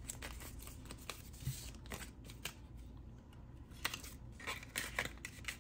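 Paper cash bills being handled: faint, irregular crisp rustles and light taps.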